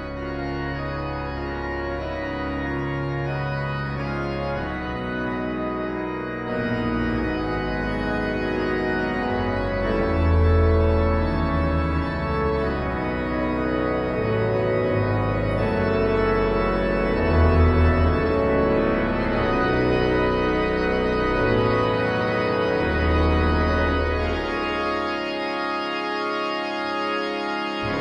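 Organ playing a tune in sustained chords over a line of low bass notes. The bass drops out briefly near the end and then comes back.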